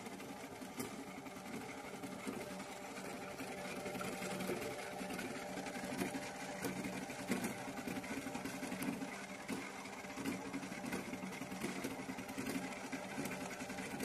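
Mandy Piko toy washing machine running its wash: its small electric motor hums steadily as the drum turns the wet laundry, with scattered faint ticks.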